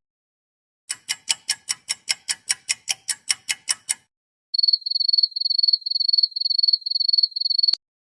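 Two short sound effects in turn: first a steady ticking, about five sharp ticks a second for some three seconds, like a clock; then a high, thin trilling chirp repeated in about six short bursts, like a cricket, cut off by a click.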